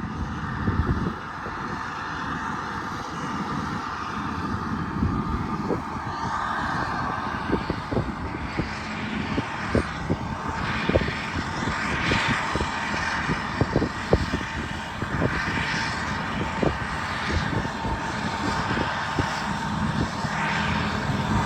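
Caterpillar crawler bulldozers working dirt: diesel engines running under load with repeated metallic track clanks, the engine note swelling up and down several times.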